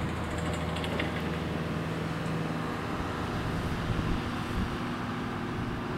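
Airbus A320-family airliner's twin jet engines running as it moves along the runway, a steady noise with a low hum.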